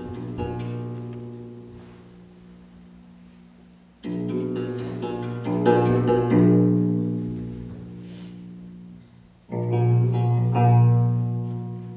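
Slow instrumental music on plucked strings: chords struck every few seconds and left to ring and fade.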